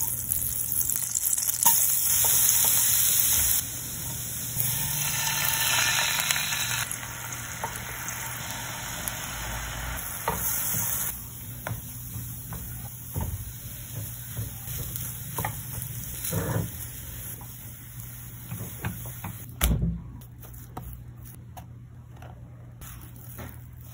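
Butter sizzling in a hot nonstick frying pan while a wooden spatula pushes it around; the sizzle fades about halfway through as mashed potato is stirred and scraped around the pan, with light taps and scrapes of the spatula and one louder knock about twenty seconds in.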